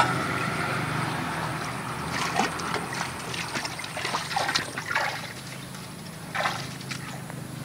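Small Honda engine on a mini hand tractor running steadily, with water and mud splashing and sloshing as the tractor and harrow move through a flooded rice paddy; the splashes come in a run of short bursts from about two seconds in until near the end.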